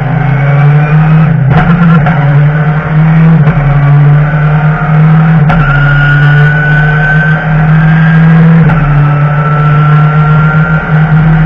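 BMW touring race car's engine heard from inside the cockpit, running hard under acceleration: its note rises steadily in pitch and drops back at each upshift, three times.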